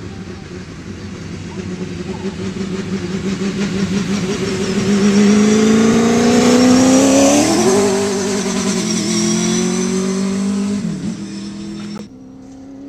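V8 Supercar's V8 engine at high revs, growing louder as the car approaches and passes at speed, its pitch sliding down as it goes by and fades away. The sound cuts off abruptly near the end.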